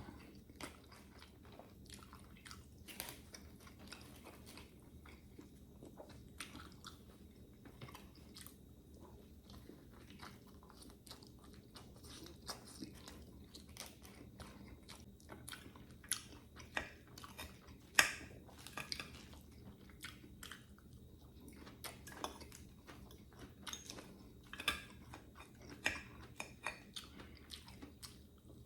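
A person chewing and crunching food close to the microphone, with irregular crisp bites and mouth sounds throughout. The loudest crunch comes about eighteen seconds in.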